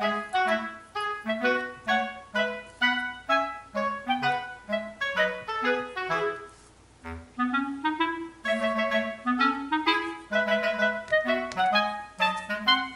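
Background music: a light tune of short, detached notes at a steady pace, with a brief lull about six to seven seconds in.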